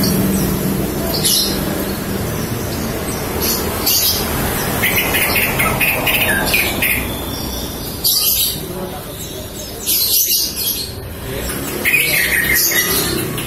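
Green leafbird (cucak ijo) chirping in short, scattered bursts of calls, offered as a female's calls used to stir a male into singing.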